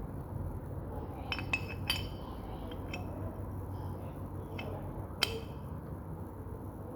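Several light, ringing clinks of small hard objects knocking together, the sharpest a little past five seconds in, over a steady low hum.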